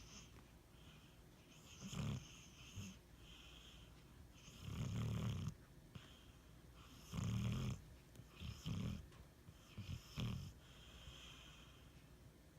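Pit bull snoring in REM sleep: a string of uneven snores and snorts, some short and two lasting close to a second, with fainter hissy breaths between them.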